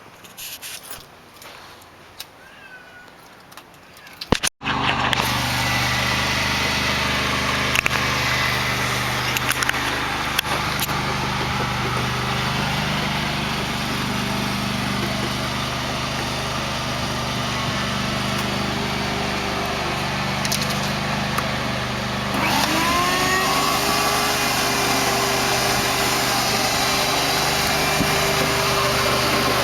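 Quiet at first. Then, after an abrupt cut about four and a half seconds in, a small engine or motor runs steadily. About three-quarters of the way through, a rising whine joins it and the whole sound gets a little louder.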